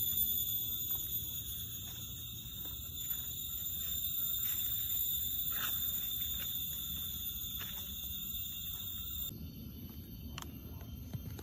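Steady, high-pitched drone of tropical forest insects, mixed with scattered footsteps and rustling on the dirt trail. The insect drone cuts off suddenly about nine seconds in, leaving quieter forest ambience with a few clicks.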